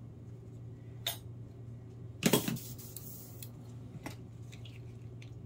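Small hard objects clinking on a work table: a click about a second in, a short louder clatter a little after two seconds, and a faint click near four seconds, over a low steady hum.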